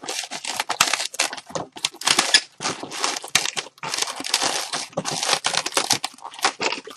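Long latex twisting balloons rubbing and crinkling against each other and the hands as they are twisted and locked into bubbles, in quick irregular scratchy strokes.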